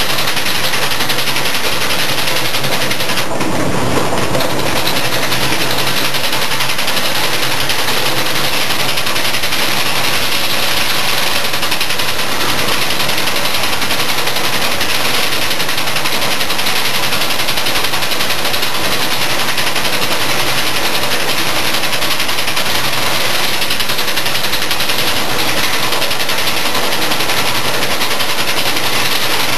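Rotary monoblock filling-and-capping machine for plastic oil jugs running steadily: a dense, even mechanical clatter and hiss. A brief louder rush of noise comes about three seconds in.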